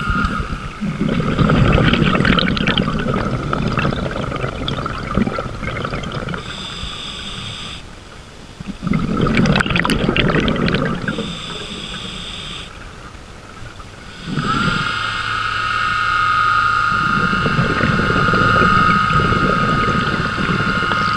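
Underwater sound of a scuba diver's exhaled bubbles rushing from the regulator in two long bursts. About two-thirds of the way in, a steady high electric whine with a low hum underneath starts and keeps running.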